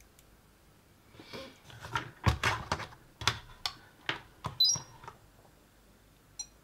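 Clicks and knocks of crocodile test clips and a handheld Peak Atlas ESR70 capacitor meter being handled, the loudest knock a little over two seconds in. A brief high electronic chirp comes from the meter just before the five-second mark, as its test button is pressed to start a measurement.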